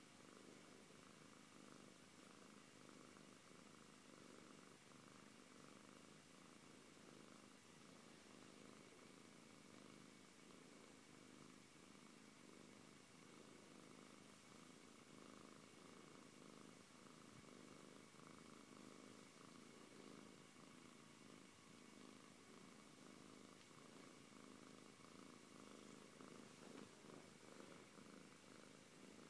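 Siberian cat purring steadily and faintly while being stroked.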